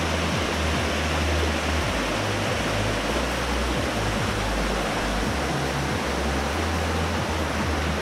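Small waterfall cascading over a rock face: a steady rushing of falling water.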